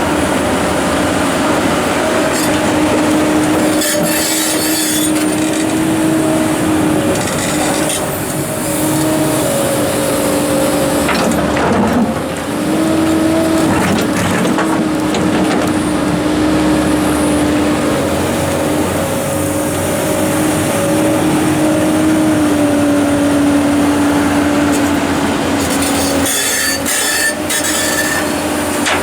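Komatsu PC290-11 hydraulic excavator working, its engine and hydraulics running with a steady whine that dips and rises a little in pitch. A few sharp knocks and clanks break in, about four seconds in, near the middle and near the end.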